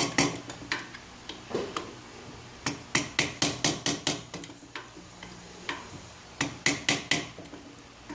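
Hammer tapping a steel chisel to work loose the press-fit retaining ring of a drill's keyless chuck: runs of quick, ringing metallic taps, a few a second, broken by short pauses.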